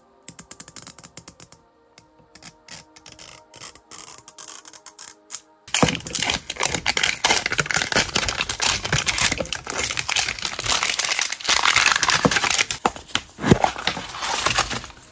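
Fingers picking at the sticker seal of an L.O.L. Surprise toy ball, with faint scattered clicks. About six seconds in, it gives way to loud, continuous crinkling and tearing of the holographic plastic foil wrapper as it is stripped off the ball.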